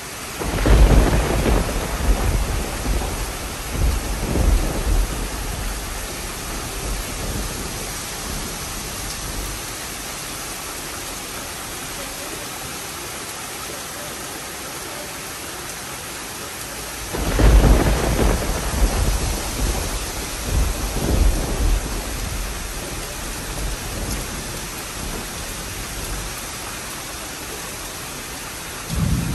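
Steady heavy rain, with two spells of deep rumbling over it: one starting about half a second in and lasting several seconds, another starting about seventeen seconds in.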